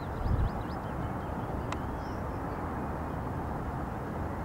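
Wind rumbling over the camera microphone, with a stronger gust about half a second in. Small birds chirp faintly at the start and again about two seconds in, and there is a single sharp click just before that.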